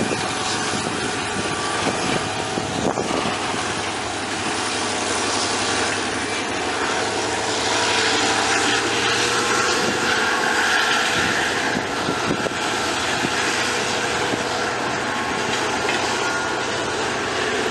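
GM GT22CW diesel-electric locomotive hauling a loaded freight train: a steady engine drone with several held tones over running noise, swelling slightly about halfway through.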